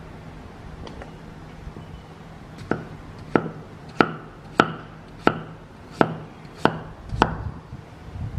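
Knife chopping on a cutting board: about eight sharp, evenly paced strokes, roughly one every 0.6 seconds, starting a little before the middle.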